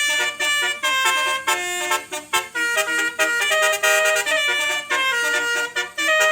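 Basuri musical horn playing a quick 'telolet' melody of short, steady-pitched horn notes, several tones sounding together, broken by brief pauses between phrases.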